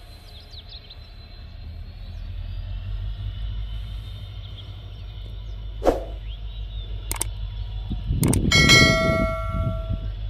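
Low rumble of a WDP-4D EMD diesel locomotive pulling away, growing louder. Over it, a subscribe-button sound effect: a few sharp clicks from about six seconds in, then a loud bell-like ding ringing for over a second near the end.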